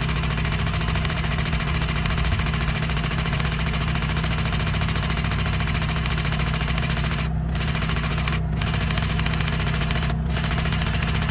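Bobcat E32i mini excavator's diesel engine idling steadily, a constant low hum with a fast, even beat.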